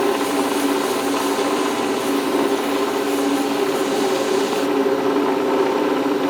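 Electric grinder running steadily, re-grinding a steel sword blade. It gives a constant hum with a hiss over it, and the higher hiss falls away about four and a half seconds in.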